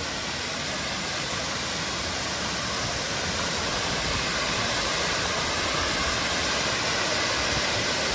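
Waterfall rushing, a steady roar of falling water that grows gradually louder as it is approached.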